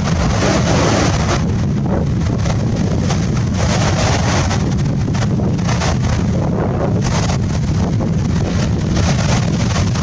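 Strong wind buffeting the microphone over the steady rush of rough sea waves.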